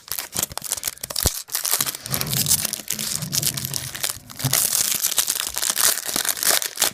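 Foil wrapper of a trading-card pack crinkling and tearing as it is ripped open by hand, in loud crackling spells with a couple of short pauses.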